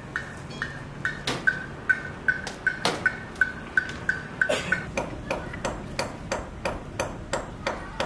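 Steady hammering, about three blows a second. In the first half each blow rings with a short metallic ping, as a hammer striking metal; after about five seconds the blows go on at the same pace, duller and without the ring.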